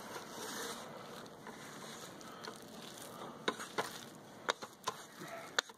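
Wooden spatula stirring cooked rice, chicken and corn in a pressure cooker's inner pot: soft scraping and squishing, with several sharp clicks of the spatula against the pot in the second half.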